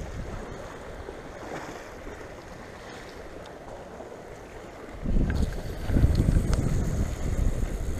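Sea washing gently against shoreline rocks in a steady wash of small waves. About five seconds in, a low rumble of wind buffeting the microphone comes in and stays louder.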